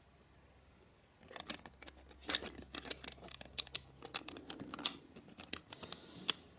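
Plastic LEGO bricks being handled: an irregular string of small clicks and rattles as pieces are picked through and pressed together, starting about a second in.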